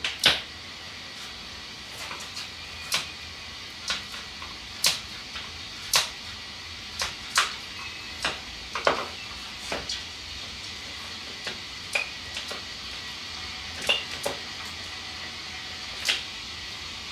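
Irregular sharp clicks and snips from a small hand tool working along the edge of an old boat cushion as its cover is unpicked, about one or two a second with uneven gaps. The loudest click comes right at the start.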